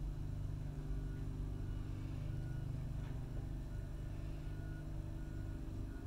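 Construction machinery engine running steadily outside, heard from indoors as a low, even drone.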